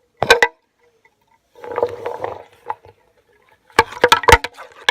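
Handling noises of small objects: a few sharp knocks just after the start, a short scraping rustle in the middle, and a quick run of clicks and knocks near the end.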